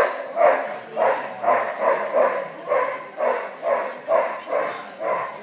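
A dog barking repeatedly and evenly, about two barks a second, keeping up the run of barks throughout.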